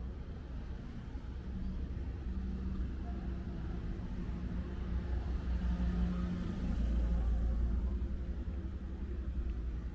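A small van drives past at low speed. Its engine hum and tyre noise build to a peak about two-thirds of the way through, then fade, over a steady low street rumble.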